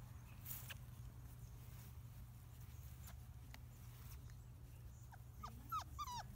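Black Labrador puppies, about four weeks old, giving a few short, high, falling squeals about five seconds in, faint over a low steady hum and a few light ticks.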